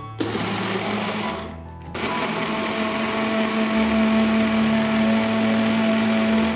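Personal bullet-style blender running as its cup is pressed down onto the motor base, blending banana and ginger: a short first pulse, a brief pause under two seconds in, then a longer steady run that cuts off suddenly at the end.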